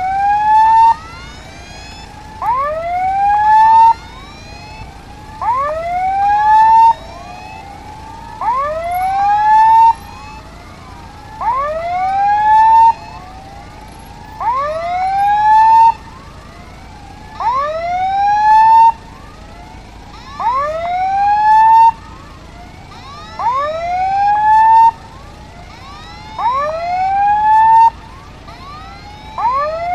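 Electronic level-crossing warning alarm: a rising wail about a second and a half long that cuts off sharply and repeats evenly about every three seconds, warning of an approaching train.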